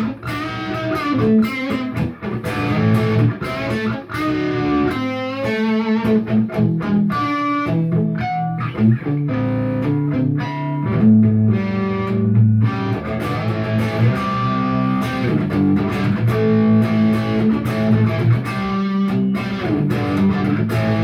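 Electric guitar on a Wolfetone P90 neck pickup, its volume knob turned fully up, played through a Peavey JSX tube amp: chords and single-note riffs at the top of the guitar's volume range, where the amp is pushed hardest.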